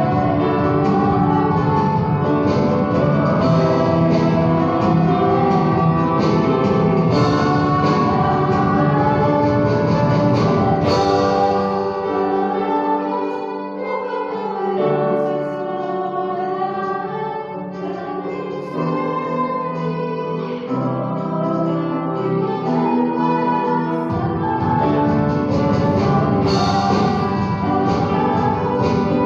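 A song with singing over instrumental accompaniment. Partway through, the bass drops out and the music gets a little quieter for about ten seconds, then the full accompaniment comes back.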